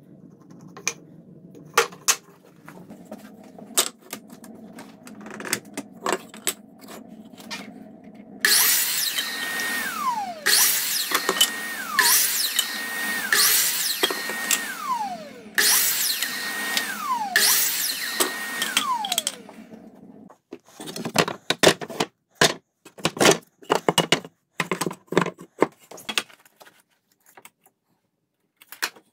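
First, light taps and clicks of wooden boards being handled and marked. Then a miter saw makes about six short cuts through boards; each time the motor whine holds steady and then winds down after the trigger is released. After that come sharp knocks and clatter of cut wood pieces being set down.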